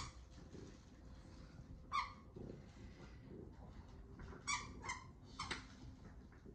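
Squeaker in a plush dog toy squeaking as a dog chews it: four short, high squeaks, one about two seconds in and three close together near the end.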